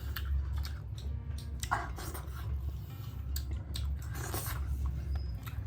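A person chewing and biting food close to the microphone, with scattered crisp crunches and wet mouth sounds.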